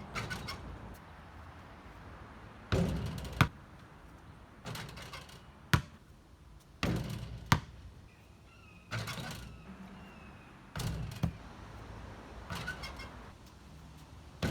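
A series of sharp knocks and thuds, about one every two seconds, each after a short rush of noise.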